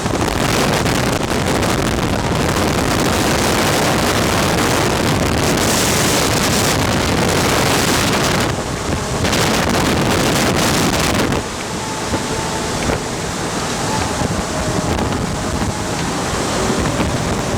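Strong rush of air driven by a VOD-40 mine ventilation fan, buffeting the microphone as a loud, steady noise. It dips briefly about eight and a half seconds in and eases a little after about eleven seconds.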